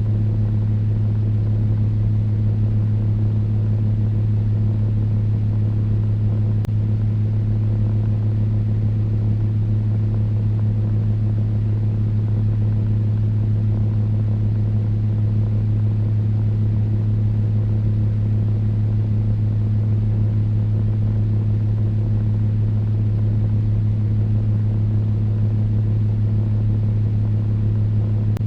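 Electric fan running steadily: a constant low motor hum with a second, higher hum above it, under an even rush of moving air.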